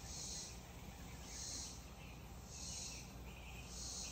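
Insects calling: a high buzzing pulse about half a second long repeats roughly every second and a quarter, with a second, lower-pitched caller pulsing between them.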